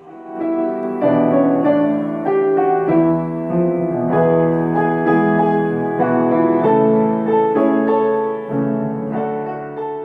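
Background music: soft piano playing sustained chords and a slow melody.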